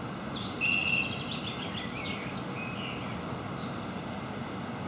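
A songbird singing a run of quick chirps and trills, loudest just under a second in, over the steady low rushing of an electric multiple unit rolling slowly towards the platform.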